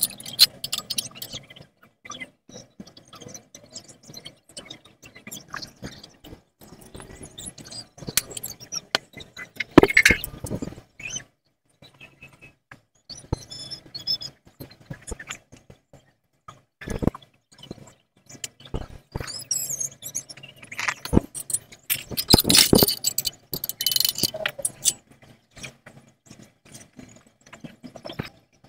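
Irregular metal knocks and scrapes as a stainless steel exhaust pipe is worked in a bench vise, over the faint steady hiss of a gas torch flame heating the pipe. The sharpest knocks come about ten seconds in and again some three quarters of the way through.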